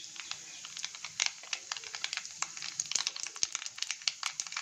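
Mustard, cumin and fenugreek seeds crackling in hot oil in a kadhai: a fast, irregular run of sharp pops over a faint sizzle as the tempering cooks.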